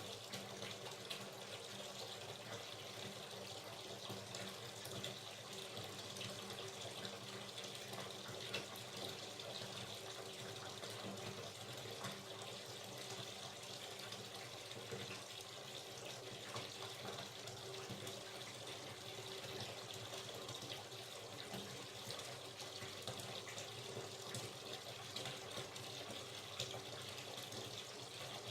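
Hot water running steadily from a tap into a filling bathtub: an even rushing splash, with small droplet splashes scattered through it.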